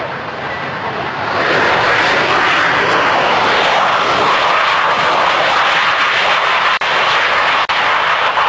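Military jet aircraft engines running loud and steady, swelling about a second in. The sound drops out for an instant twice near the end.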